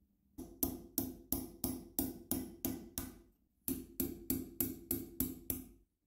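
A metal file rasping on the rivet heads of an old galvanized-steel padlock held in a vise, grinding them down to free the metal rods. It goes in quick, even strokes of about three a second, with a brief pause about halfway through.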